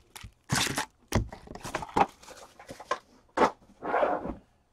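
Foil wrappers of 2014-15 Fleer Ultra hockey card packs crinkling as the packs are handled and stacked, in a series of short, irregular rustles.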